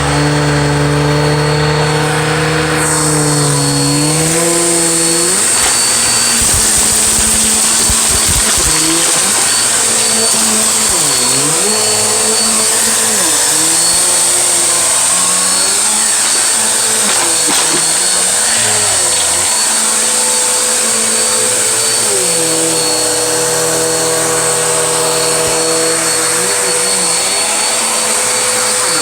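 Vacuum cleaner running steadily, its motor pitch dipping and recovering again and again; a high hiss comes in a few seconds in.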